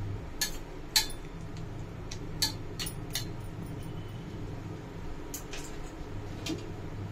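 A metal spoon clinks against a stainless steel mixer-grinder jar as soaked dates are spooned in: about six sharp, irregular clinks over a faint steady low hum.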